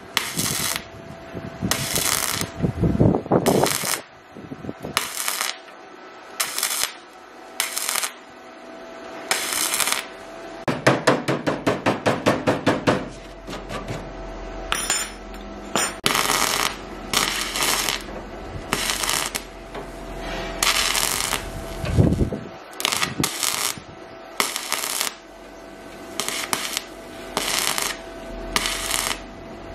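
MIG welder tack-welding rusty steel: short bursts of crackling arc, one after another, each under about a second. Near the middle comes a fast pulsing run of about five bursts a second, over a faint steady hum.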